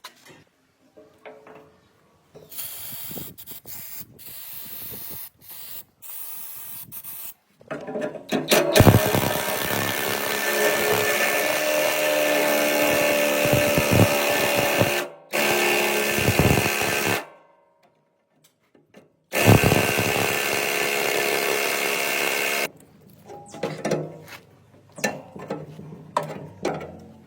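A handheld power tool running hard with a steady whine in three long runs, each starting and stopping abruptly, after a stretch of lighter grinding or scraping. Lighter clinks and knocks of tool and metal handling follow near the end.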